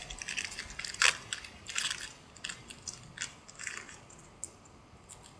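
Crinkling and rustling of a trading-card pack being opened and its cards handled: a string of short crackles, the loudest about a second in.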